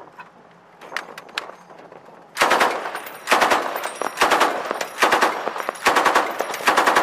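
M240B 7.62 mm belt-fed machine gun firing about six short bursts in quick succession, starting a couple of seconds in. A few light clicks come before the first burst.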